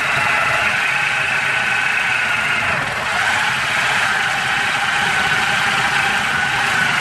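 Power tool cutting through a steel bolt on a truck axle, running steadily with a high whine over a harsh metal-cutting noise.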